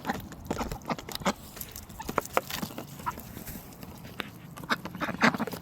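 Ducks and geese eating watermelon: a rapid, irregular run of sharp clicks and snaps as their bills peck and champ at the fruit.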